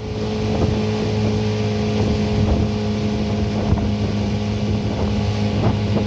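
Small aluminium boat's outboard motor running steadily under way, with a low, even engine hum and scattered irregular knocks over it, and some wind on the microphone.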